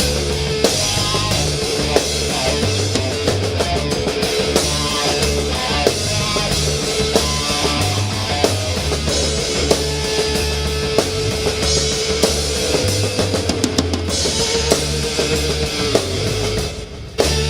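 Rock music with a full drum kit, bass drum and snare driving a steady beat over a heavy bass line and a long held note; the sound drops away briefly just before the end, then a drum hit brings it back.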